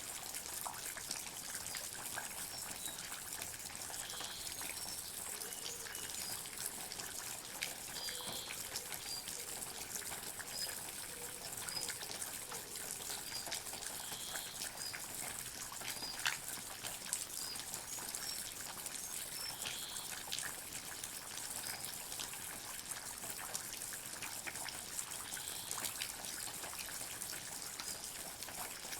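Water dripping and trickling in a forest: a steady high hiss with many small, irregular drop ticks, and scattered short high-pitched blips.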